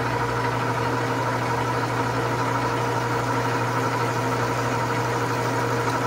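Metal lathe running steadily with its clutch engaged while taking a cut on a pinion gear, heard as an even motor hum with a few steady higher tones.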